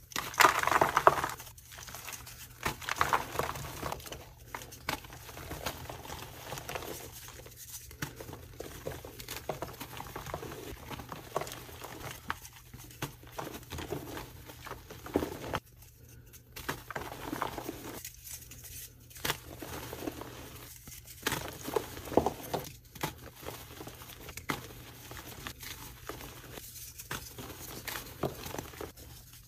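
Soft, powdery blocks of gym chalk being squeezed and crushed by hand, crumbling with a steady run of irregular crunches and crackles. The loudest crunch comes about a second in.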